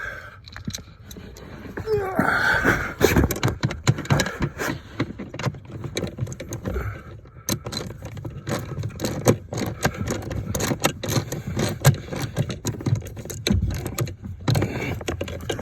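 Irregular clicks, knocks and scrapes of hand tools and metal parts being worked under a pickup's dashboard, as screws are fitted to hold a pedal assembly in place.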